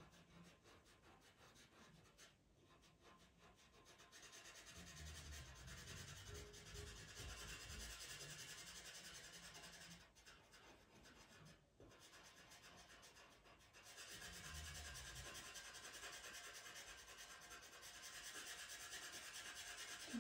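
Faint scratchy rubbing of a pastel pencil on Pastelmat paper in quick repeated strokes, laying black into the dark background. It comes in two longer stretches with short pauses around the middle.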